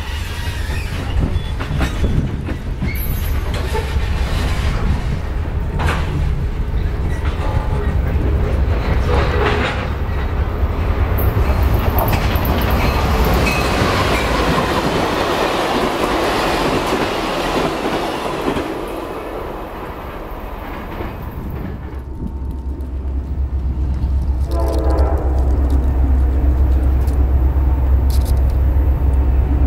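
A North Carolina diesel passenger train rolling past close by, its locomotive and coaches rumbling and clattering over the rails. After a break partway through, a Norfolk Southern intermodal freight, trailers on flatcars, rolls past with a heavy steady low rumble.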